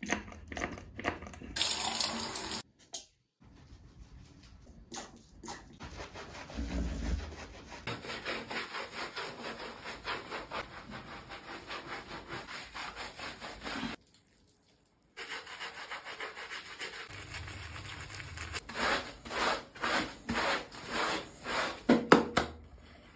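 Hands lathering and scrubbing a Labrador's wet, shampoo-soaked fur, heard as runs of quick, even rubbing strokes, about two to three a second. Two short gaps break the runs, and the strokes get louder and slower near the end.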